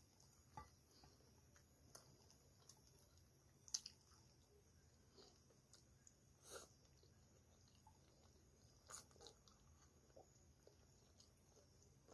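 Faint chewing and mouth sounds of a person eating, with a few short sharp clicks and smacks scattered through. The loudest come about six and a half and nine seconds in.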